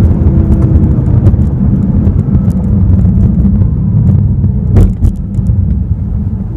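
The 2015 BMW M6 Gran Coupe's 4.4-litre twin-turbo V8 running under way, a loud, steady low rumble of engine and exhaust. There is one sharp click a little before five seconds in.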